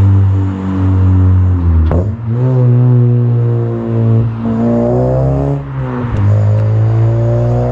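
Exhaust note of a 9th-gen Honda Civic Si's 2.4-litre K24 four-cylinder, running a catless downpipe and a Full Race cat-back, pulling under throttle. The note climbs slowly, then dips and breaks off three times, about two seconds apart.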